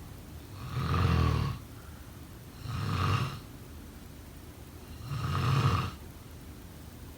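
A person snoring: three snores, each about a second long, roughly two seconds apart.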